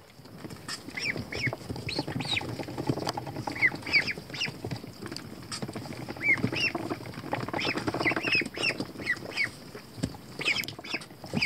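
Pekin ducklings peeping, many short high chirps that rise and fall, overlapping from several birds at once.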